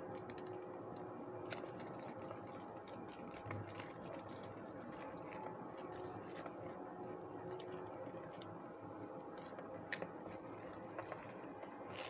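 Thin plastic shrink-wrap crinkling and crackling in soft, irregular clicks as it is peeled by hand off a small cardboard box, over a faint steady hum.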